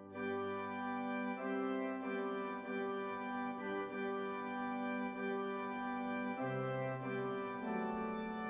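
Instrumental background music of slow, sustained chords that change every second or so.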